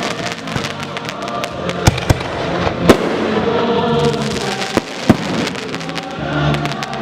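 Aerial fireworks going off: a run of crackling pops in the first few seconds and several sharp bangs, the loudest about three seconds in, over music playing throughout.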